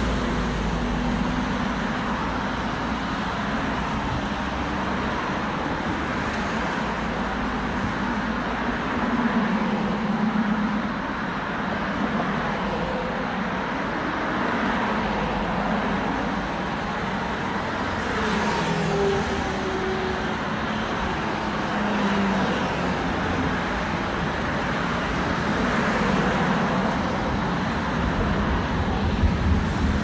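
Road traffic: a steady wash of engine and tyre noise from cars on a multi-lane road, with single passing cars swelling louder a few times.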